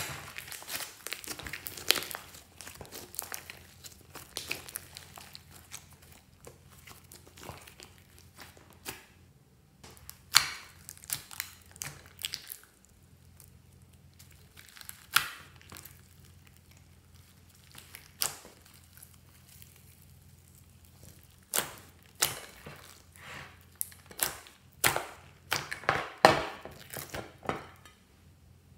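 Hands squishing and stretching slime with small beads mixed in: sticky crackles and sharp pops from trapped air, coming at irregular intervals, with the loudest, densest run of pops in the last few seconds.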